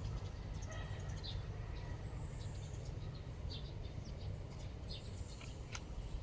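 Low steady background rumble with faint, scattered bird chirps and one sharp click near the end.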